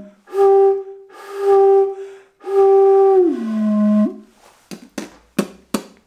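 Small wooden organ flute pipe blown by mouth, sounding three steady hooting notes on the same pitch. Partway through the third, longer note the pitch drops about an octave, as covering the open top stops the pipe and doubles its sounding length. A few sharp wooden knocks follow near the end as the pipe is handled.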